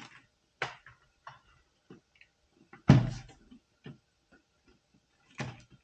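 Scattered clicks and knocks of LEGO plastic parts on a built model being handled and fitted, the loudest knock about three seconds in.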